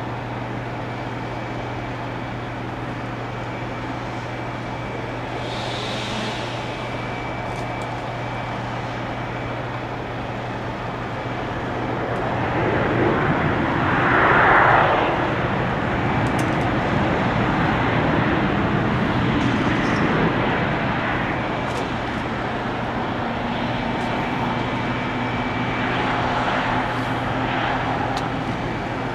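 Boeing 737-800 jet engines, its CFM56 turbofans, on landing. The engine noise swells to its loudest about halfway through, then carries on as a sustained rumble that eases only near the end. A steady low hum sits underneath throughout.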